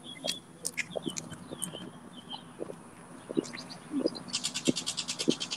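Footsteps on a concrete sidewalk as a small group walks, with birds chirping. Near the end a rapid high-pitched trill of about ten pulses a second begins.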